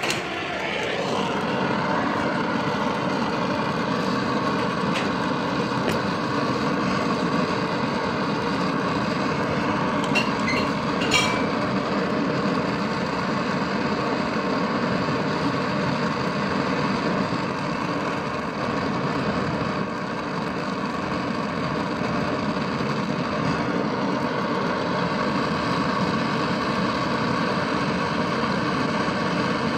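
Steady hiss of a brazing torch flame heating the brazed refrigerant-line joints on a refrigerator compressor to unsweat them, with a few light clicks about ten and eleven seconds in.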